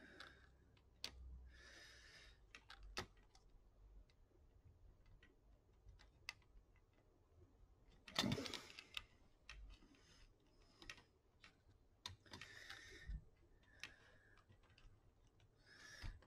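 Faint scattered clicks and short scratchy rubs of fingers handling small plastic and metal parts inside an opened laptop, beside the cooling fan and its connector, with a louder rustle about eight seconds in.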